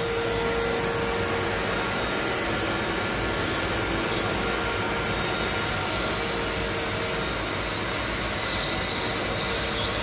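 Deerma cordless stick vacuum cleaner running steadily, its crevice nozzle sucking along a window-sill track, with a high whine over the rush of air. About halfway through, the whine becomes uneven and wavers.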